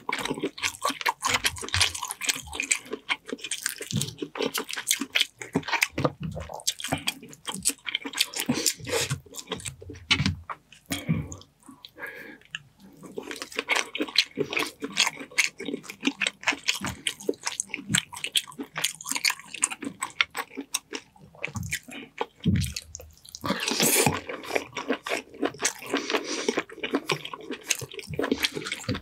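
Close-miked mukbang eating sounds: wet chewing of butter-garlic seafood boil and sweet corn, a rapid run of moist clicks and squishes. There is a brief lull about twelve seconds in.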